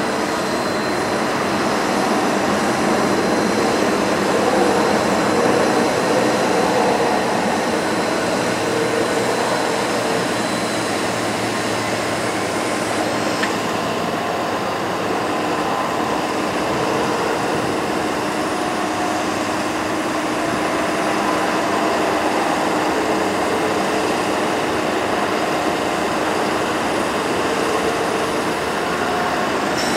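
Ford F-550 bucket truck running steadily with its PTO engaged, the engine driving the hydraulic pump while the aerial boom swings and lowers.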